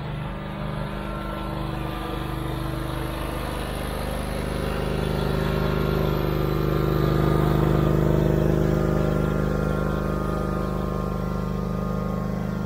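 Snapper zero-turn riding mower's engine running steadily as it tows a golf cart on a chain, growing louder as it comes close about halfway through and easing off slightly toward the end.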